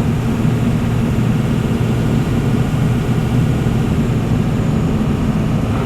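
Tractor-trailer's diesel engine running steadily under load, heard inside the cab as an even low drone with road noise.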